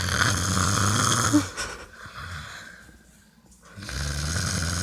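A person snoring in their sleep: one loud snore over the first second and a half, a quiet pause, then another snore starting about four seconds in.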